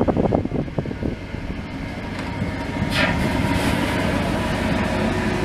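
The VS300 hose-fed pumping unit running steadily with an even mechanical noise; a brief falling whistle comes about three seconds in, followed by a faint steady tone over the running noise.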